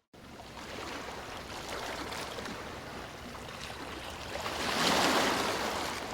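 Ocean surf washing onto a beach: a steady rush of breaking water, with one wave building to its loudest about five seconds in and then receding.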